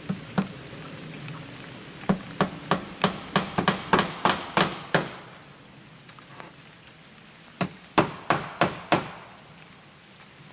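Hammer nailing aluminum fascia trim: a couple of blows, then a quick run of about ten at roughly three a second, a pause, and five more.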